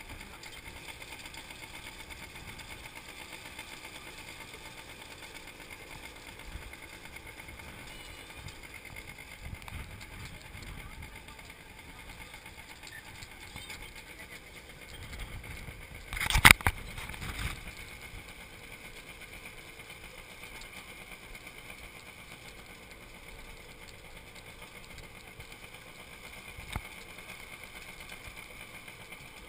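Small motorbike engine running steadily while riding, with one loud knock about halfway through.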